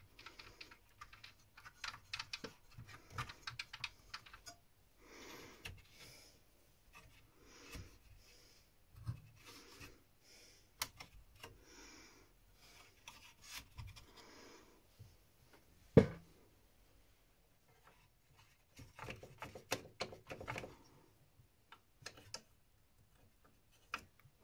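Cotton swab rubbing and scrubbing around the plastic gears and mechanism of an opened Pioneer CLD-2950 LaserDisc player: short bursts of scratchy rubbing and small clicks, with one sharp knock about two thirds of the way through.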